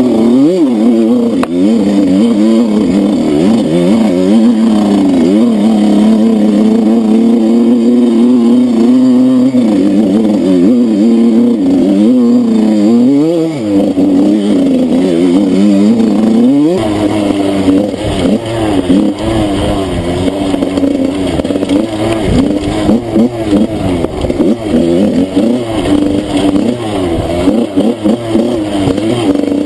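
Enduro motorcycle engine being ridden off-road, its note rising and falling with throttle and gear changes. About 17 seconds in the sound turns rougher and choppier.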